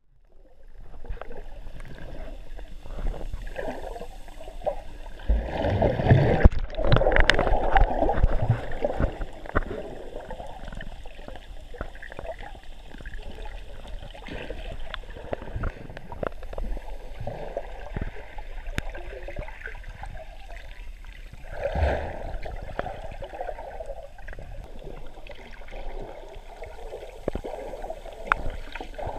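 Muffled underwater sound of water moving and bubbling around the camera, with many small clicks and crackles. It swells louder from about five to ten seconds in, and again briefly about twenty-two seconds in.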